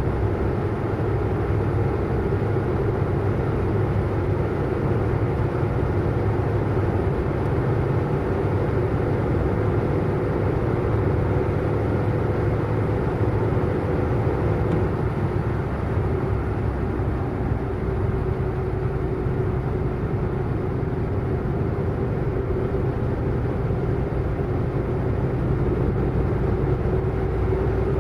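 Car driving at a steady speed: continuous engine and road noise with a steady low drone, unchanging throughout.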